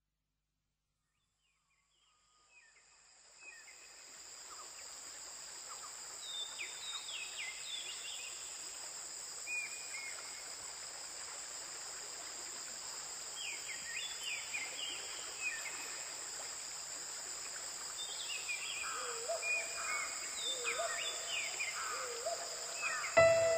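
Recorded nature ambience fading in after about two seconds of silence: a steady high insect chirring with short, repeated falling bird calls over it. Music comes in sharply just before the end.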